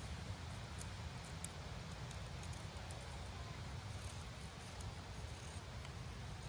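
Faint, crisp ticks of a small fixed-blade knife, an L.T. Wright Pronghorn, shaving thin cuts from a dried black cherry stick, heard over a low, steady rumble.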